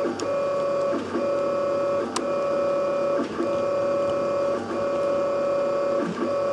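3D printer's stepper motors whining with a steady pitched tone as the print head lays down the first outline, broken by short dips about every one to one and a half seconds as the head changes direction. A single sharp click about two seconds in.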